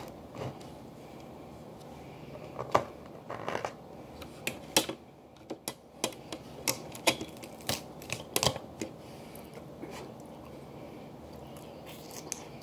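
Snow crab shell being cracked and snapped open by hand: a series of sharp, irregular cracks and clicks, busiest from about three to nine seconds in.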